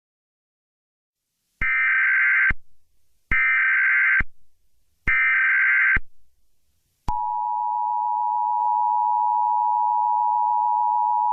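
Emergency Alert System SAME header: three short bursts of warbling data tones, each under a second. About a second after the third, the steady two-tone EAS attention signal starts and holds.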